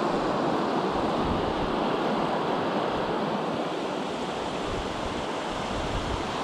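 Fast, shallow mountain river rushing over a stony bed and through rapids: a steady, even rush of water.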